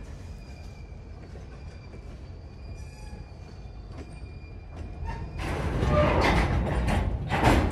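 A freight train shoved caboose-first rolls up to a grade crossing: steel wheels rumble on the rail with faint squealing. The sound grows loud about five seconds in as the cars reach the crossing, with a sharp clatter near the end.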